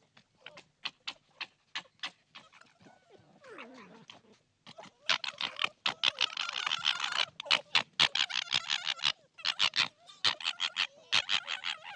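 Animal calls: a string of short, sharp clicks, then from about five seconds in, louder groups of rapid pulsed calls with brief pauses between them.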